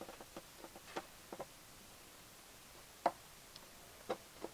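Scattered small clicks and taps of a screwdriver, screw and parts being handled as a relay is screwed into place under a car's dash: a quick run of clicks in the first second and a half, then three sharper clicks, the loudest about three seconds in.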